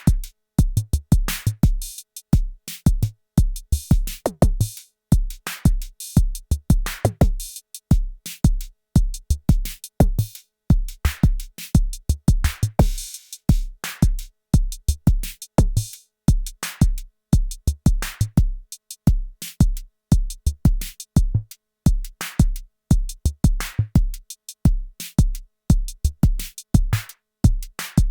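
Arturia DrumBrute Impact analog drum machine playing a steady beat: a deep kick drum with snare and hi-hat hits over it. A short hissing swell comes about halfway through.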